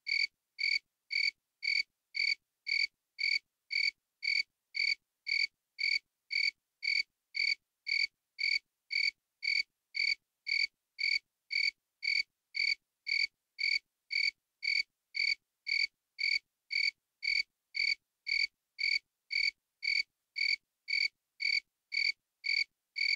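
A short high-pitched beep repeating evenly about twice a second, every beep alike.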